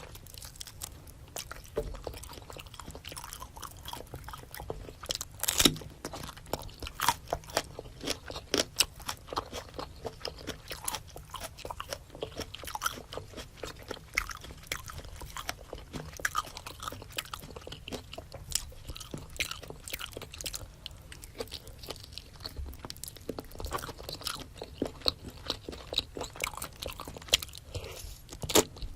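Close-miked eating of a spicy seafood boil: wet chewing and biting with many quick, irregular crisp clicks and smacks.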